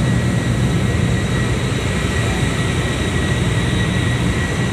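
Industrial compressor-room machinery running, a steady low drone with a thin, steady high whine over it.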